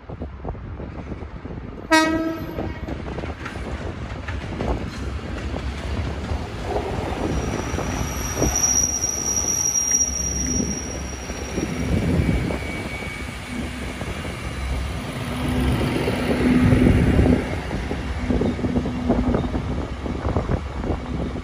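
GB Railfreight Class 73 electro-diesel locomotive pair approaching and passing close by. A short horn blast sounds about two seconds in, followed by a long build of engine and wheel noise on the rails, with a thin high wheel squeal near the middle of the pass.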